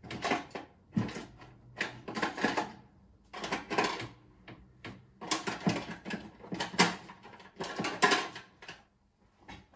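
Rummaging through tools and small hard parts while searching for alligator clips: a run of irregular clattering and knocking that dies away about nine seconds in.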